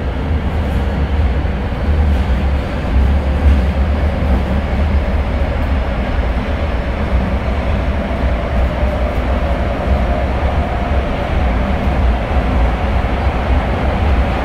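Tokyo Metro Marunouchi Line 02 series subway train running, heard from inside the car: a steady, heavy rumble of wheels and running gear, with a faint whine coming in past the middle.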